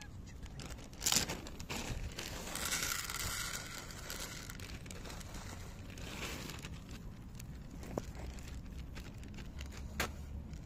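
A plastic bag of dry cat food crinkling as kibble is poured into a plastic dish: a sharp rustle about a second in, then a longer stretch of crinkling. After that, a cat crunching the kibble, with a few small clicks.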